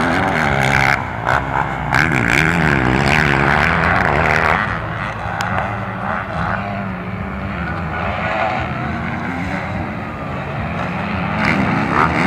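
Motocross bikes racing, several engines revving up and down through their gears at once, loudest in the first few seconds and a little lower after.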